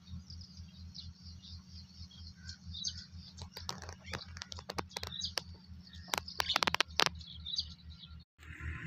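Small birds chirping, with a quick run of sharp clicking calls between about four and seven seconds in, over a steady, evenly pulsing low hum.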